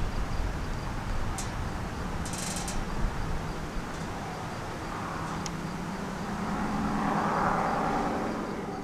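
A vehicle passing, growing louder about five seconds in and fading near the end, over steady outdoor background noise with a few brief high chirps.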